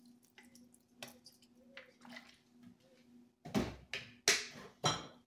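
Lemon juice trickling from a thin stream onto raw chicken in a stainless steel bowl, faintly. Near the end come three short, louder bursts of noise about half a second apart.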